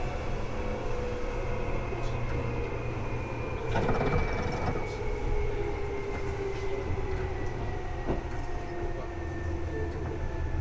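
Seibu 2000 series electric train running, heard from inside the car: a steady rumble with whining tones that slowly fall in pitch. Two brief knocks come about four and eight seconds in.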